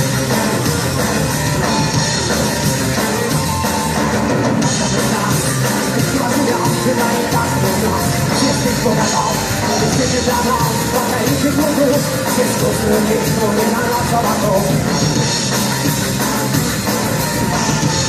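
Heavy metal band playing live: electric guitars and a drum kit, loud and continuous.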